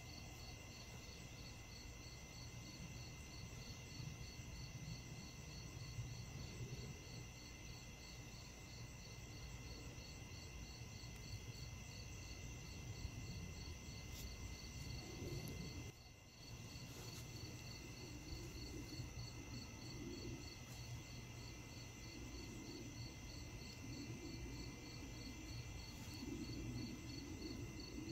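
Faint evening chorus of crickets and other insects: steady trilling at several pitches at once, one of them pulsing in a fast, even rhythm, over a low background rumble.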